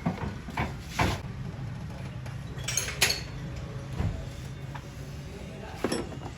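Metal tools and engine parts clinking and knocking: a few sharp, separate strikes over a steady low hum.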